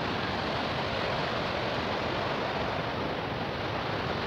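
Steady rushing of a fast, wide river running over rocks, an even roar with no break.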